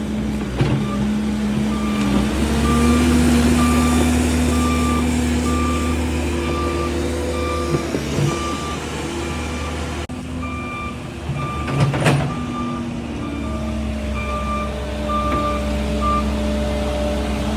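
Cat 308 excavator's diesel engine running under load, with its travel alarm beeping about once a second while the machine tracks. The engine speeds up about two seconds in, and there is a sharp knock about twelve seconds in.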